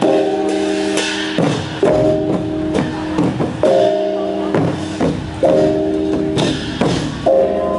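Northern Thai kong pu ja ensemble: a row of hand-held gongs struck together about every two seconds, ringing on at several pitches, over a run of drum strokes.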